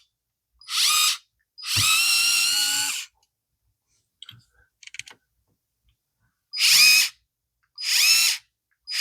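Small battery-powered electric screwdriver motor whining in short runs of about half a second to a second and a half, four times, with a few light clicks in between. The runs are its button stepping through short bursts.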